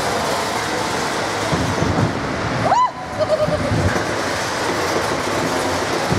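Spinning roller coaster car running along its track: a steady rattling rumble of wheels on the rails, with a brief rising-and-falling squeal about three seconds in.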